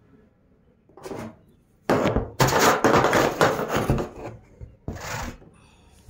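Plastic parts of a hand-held vacuum cleaner knocking and scraping as its detachable part is pried and pulled off: a short knock about a second in, then a few seconds of dense knocking and rubbing, and another short knock near the end.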